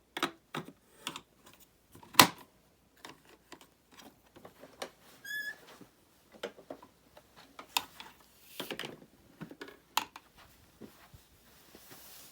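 Scattered plastic clicks and knocks of an upright vacuum being handled, the loudest a little over two seconds in, with one short high squeak about five seconds in. The vacuum's motor is not running.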